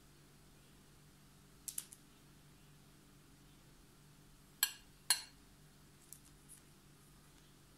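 Metal spoon clinking against a glass bowl of diced pizza topping: a few light taps, then two sharper clinks about half a second apart, each with a short ring, and a couple of faint ticks.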